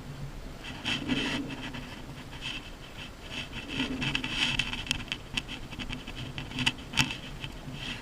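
Rubbing and rustling of a leather riding glove being pulled on and adjusted, with a few sharp clicks near the end, over a steady low hum.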